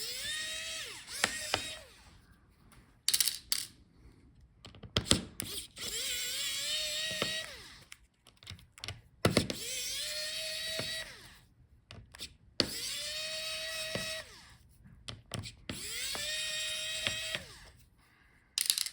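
Electric screwdriver backing out small laptop hinge screws: five short runs of a motor whine, each rising quickly to a steady pitch and winding down as it stops. Sharp clicks and taps fall between the runs.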